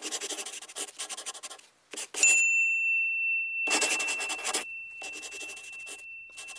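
Pen scratching across paper in quick runs of strokes, as handwriting is written out. About two seconds in, a single high bell ding sounds and rings on as a steady tone for about four seconds beneath the scratching.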